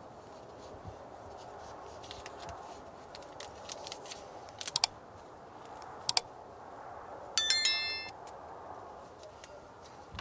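Notification bell ding of a subscribe-button animation, a bright chime about seven seconds in and the loudest sound here. Before it come a few sharp clicks, over a low steady background hiss.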